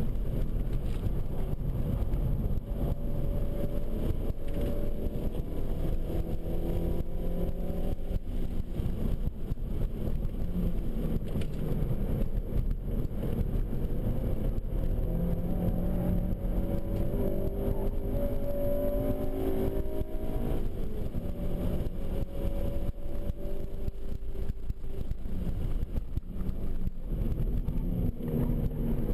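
2007 Honda Civic Si's 2.0-litre four-cylinder engine, heard from inside the cabin, pulling hard under track driving: its pitch climbs and drops back several times as it accelerates and the gears change, over steady road and tyre rumble.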